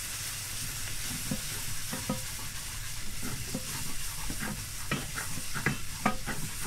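Hot milk sizzling into a butter-and-flour roux in a stainless-steel saucepan while a wooden spatula stirs and scrapes the pan. A steady hiss runs under scattered light knocks and scrapes of the spatula, which come more often in the second half.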